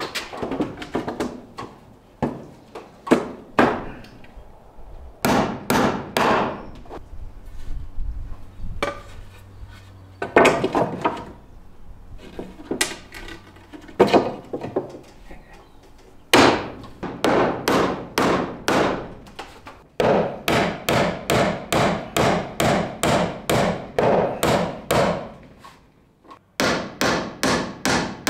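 Hand hammer nailing reclaimed wooden decking boards onto a plywood wall: runs of quick, sharp blows, about three a second, with short pauses between runs.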